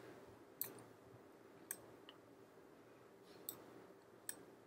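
Computer mouse button clicking four times at irregular intervals, over near-silent room tone with a faint steady hum.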